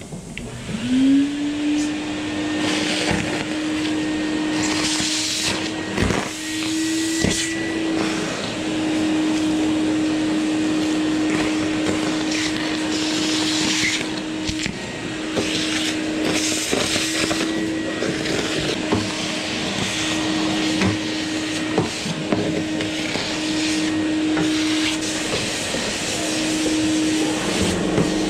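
Workshop vacuum switched on about a second in: its motor spins up to a steady hum and runs on, with repeated bursts of hissing as wood shavings and sawdust are sucked up through the hose.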